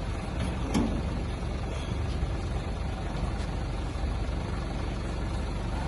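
A steady low engine-like drone that keeps an even level.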